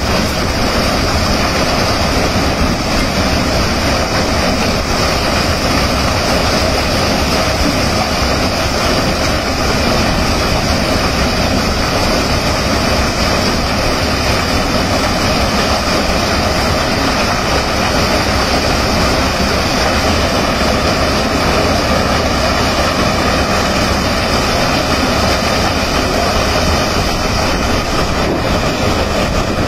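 Maize thresher running steadily under load, cobs being carried up its elevator conveyor into the threshing drum, making a loud, continuous mechanical din.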